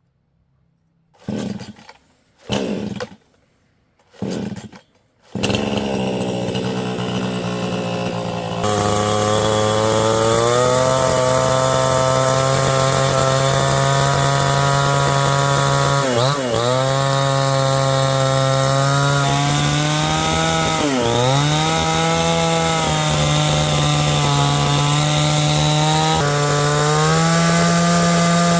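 A small engine-driven power tool is started: three short pulls, then it catches and runs; from about nine seconds in it runs fast and loud with a steady pitch that dips briefly twice, as if under load.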